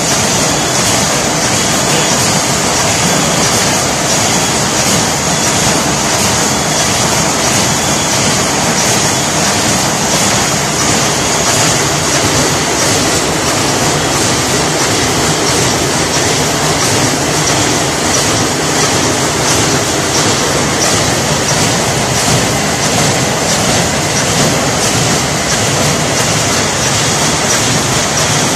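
Wet-wipe packaging line running steadily: conveyor belts carry packs through a checkweigher amid continuous machine noise with a high hiss and a faint, fast, even rhythm.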